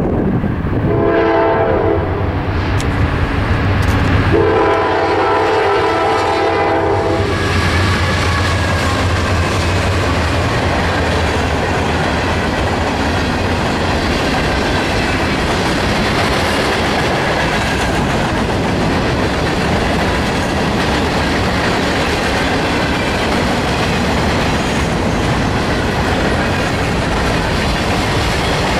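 A freight train's diesel locomotive sounds its horn at a grade crossing, a short blast and then a long one, with its engine rumbling as it passes. A long string of covered hoppers and boxcars then rolls by, wheels clacking steadily over the rail joints.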